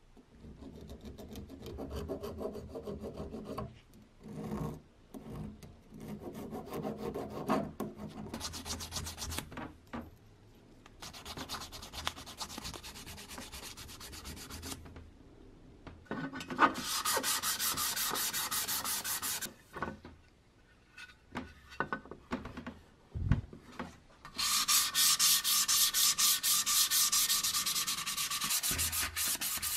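Hand abrasion of a small metal toy boat: spells of rasping file and sandpaper strokes. Near the end comes a loud, rapid run of back-and-forth sandpaper strokes on the hull.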